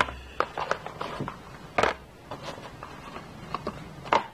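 Small cardboard boxes being handled: a run of light taps, knocks and scrapes as they are lifted from a larger box and set down on a wooden tabletop, with the firmest knocks at the start, just before two seconds in and near the end.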